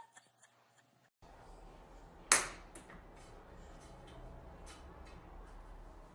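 Low room hum with one sharp knock a little after two seconds in and several lighter taps after it, as a cat grabs and knocks a long stick about on the floor.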